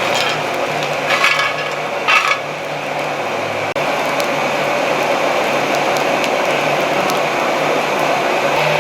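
Wood kindling burning in a coal forge: a steady rush with scattered sharp crackles, and two short scraping bursts about one and two seconds in.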